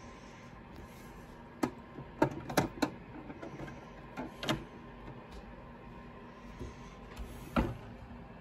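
Plastic clicks and knocks from the hinged side cargo door of a Bruder toy UPS van being unlatched and swung open by hand: four sharp clicks in quick succession about two seconds in, another around the middle, and one louder click near the end.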